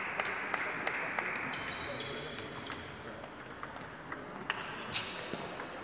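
Table tennis balls clicking off bats and tables in a large sports hall with several matches going on, over a steady hall din. The clicks come irregularly, with a louder sharp hit about five seconds in.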